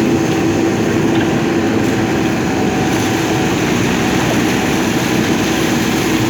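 JCB backhoe loader's diesel engine running steadily under working load, a continuous drone with a steady hum.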